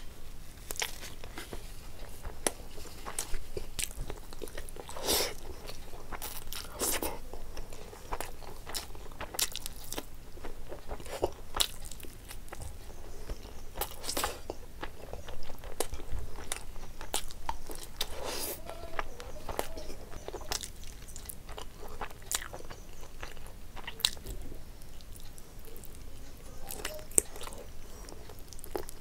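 A person eating close to the microphone: chewing and biting, with irregular sharp crunchy clicks throughout and a few louder bites.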